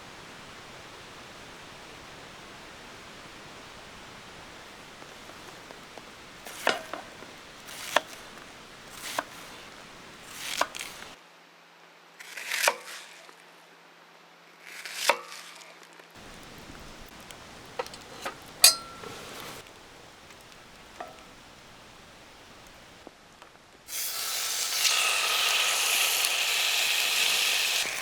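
Camp cooking: separate knife chops on a cutting board, a second or two apart, then near the end food going into a hot pan and frying with a loud, steady sizzle.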